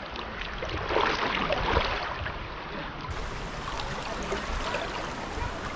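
River water rushing and splashing: a steady, noisy wash that swells about one to two seconds in.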